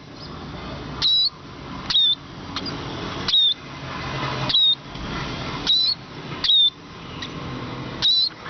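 A sparrow chirping repeatedly: short, high chirps about once a second, seven or so in a row, over a steady background hiss.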